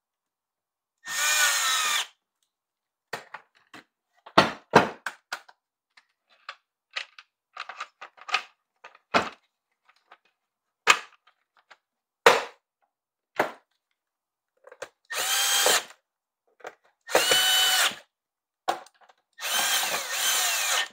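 Cordless drill-driver running in short bursts of about a second, once early and three times near the end, driving in the screws that hold a chainsaw's plastic covers. Between the bursts come scattered clicks and knocks of plastic parts being handled.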